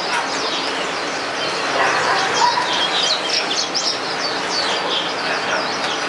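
Yellow-fronted canary (Mozambique canary) singing a fast, continuous run of short high chirps and trills.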